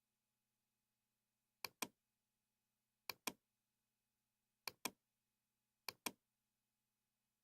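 Four pairs of sharp computer mouse clicks, each pair quick like a double-click, about a second and a half apart, over a faint steady hum.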